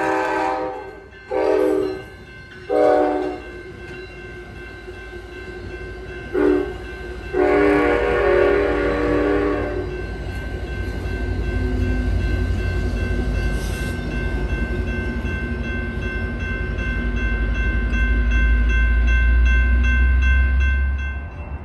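A Nathan K5LA five-chime horn on an Amtrak cab car sounds in several blasts, the longest from about 7 to 10 seconds in, while a grade-crossing bell rings steadily. The passenger cars then pass, and a low rumble builds and cuts off sharply near the end.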